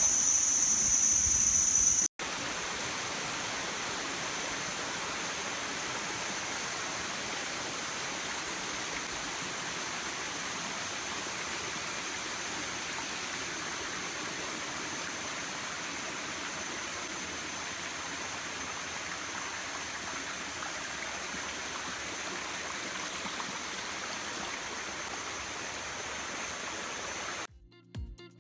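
A stream flowing in a steady, even wash of water. For the first two seconds a high, steady insect drone sounds over it before the audio cuts, and the drone lingers faintly afterwards.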